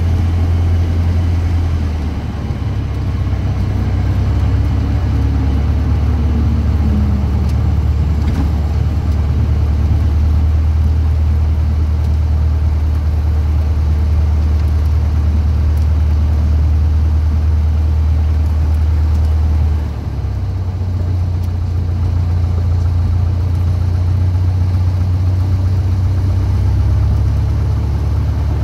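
Cessna 152's four-cylinder Lycoming O-235 engine and propeller running at low idle power as the plane rolls out and taxis, a steady low drone heard from inside the cockpit. The engine note shifts slightly about 2 seconds in and again about 20 seconds in, with power changes while taxiing.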